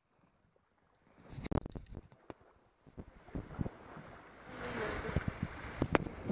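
Water and wind noise aboard a trimaran under sail: a few faint knocks and splashes at first, then from about four seconds in the rush of water along the hull and wind buffeting the microphone grow loud.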